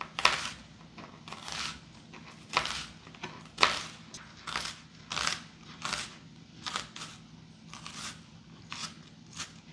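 Kitchen knife cutting up an onion on a cutting board: a dozen or so short rasping strokes, about one or two a second, irregularly spaced.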